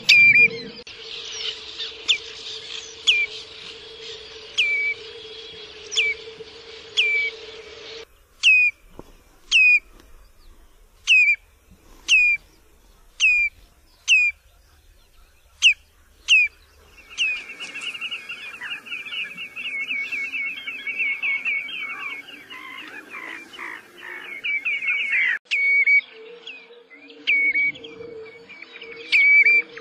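Common redshank calling: clear whistled notes that each slide sharply downward, about one a second. In the middle they give way to a fast run of rapid notes lasting about eight seconds, then the single notes return.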